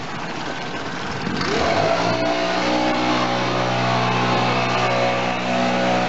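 Leaf blower engine revving up about a second and a half in, then running steadily at high speed with an even, constant pitch.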